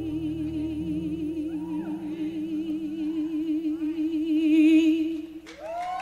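Female singer performing live, holding one long note with a steady vibrato over soft sustained accompaniment; the note swells near the end and breaks off about five and a half seconds in. Audience applause breaks out just as the note ends.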